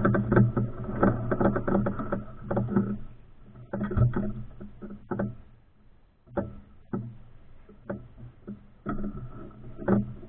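Powered parachute's engine running at low idle on the ground, its uneven sound fading after the first few seconds, with scattered short knocks and rattles.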